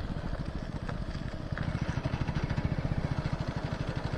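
Small single-cylinder commuter motorcycle engine running steadily at low road speed while being ridden, a fast even putter heard from the rider's seat.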